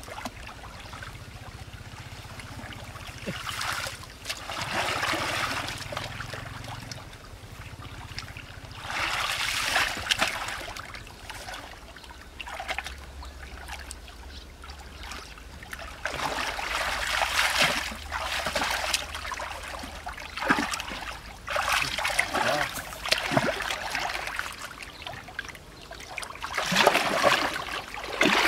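Shallow ditch water splashing and trickling, in repeated louder bursts of a second or two with short clicks between them.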